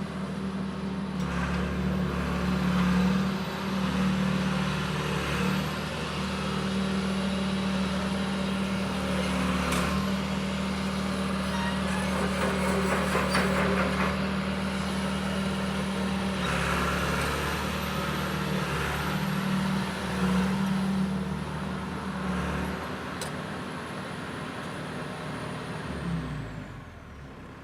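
John Deere 490E excavator's diesel engine running steadily, with stretches of louder mechanical and hissing noise coming and going as the machine works. Near the end the engine speed falls and the sound drops.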